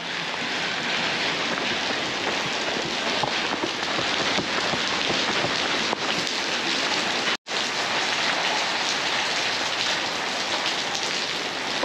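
Steady rain pattering on wet pavement and road, an even hiss with a momentary dropout a little past halfway.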